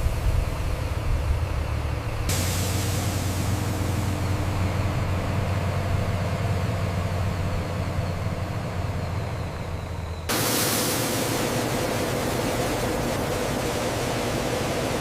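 Heavy machinery running steadily, a low rumble with a hiss over it; the sound changes suddenly twice, about two seconds in and about ten seconds in, getting brighter and hissier each time.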